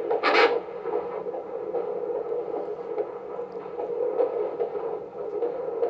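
Handheld fetal Doppler speaker playing a baby's heartbeat from the womb: a rhythmic whooshing pulse over hiss, at about 150 beats a minute. A brief loud burst of noise about half a second in.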